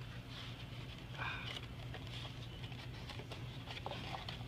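Light rustling and small clicks as a large sandwich and its paper wrapper are handled and squeezed, over a steady low hum.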